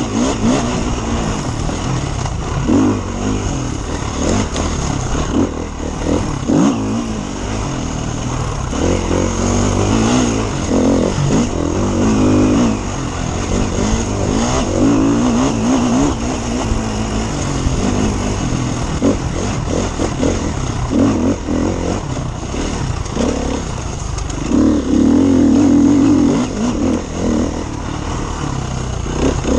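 KTM enduro motorcycle engine heard from on board, revving up and falling back again and again as the throttle is worked over rough dirt track, with a longer, louder pull near the end.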